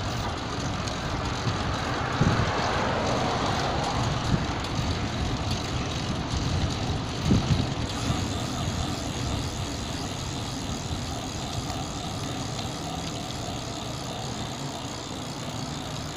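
Road traffic and wind rumble heard from a moving bicycle on a city street at night. A vehicle goes by about two to four seconds in, and there are two brief knocks.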